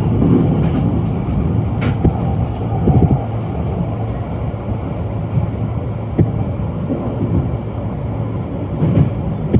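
Sotetsu 12000 series electric train running slowly along a station platform, heard from the driver's cab: a steady low rumble of wheels on rail, with a few short sharp knocks as the wheels pass rail joints.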